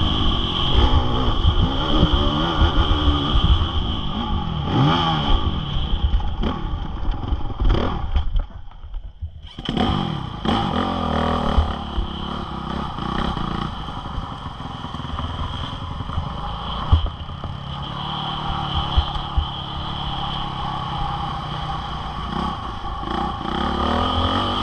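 Honda CRF450R single-cylinder four-stroke motocross bike engine revving up and down under load, dropping off briefly about eight seconds in as the throttle closes, then pulling hard again.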